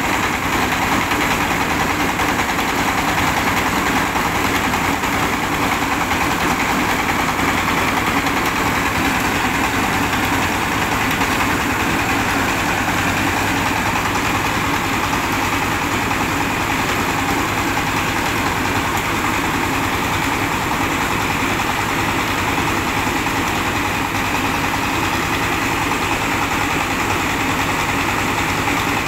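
A diesel engine running steadily, driving a rice huller and polisher as they mill rice; the machine noise holds level and unchanging throughout.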